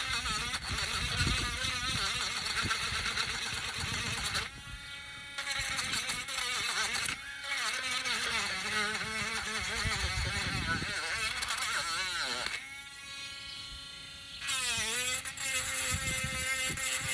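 Handheld mini rotary tool with a sandpaper drum running at high speed: a high motor whine whose pitch wavers and dips as the bit is pressed into the workpiece to sand it. It eases off briefly about four seconds in and again around thirteen seconds.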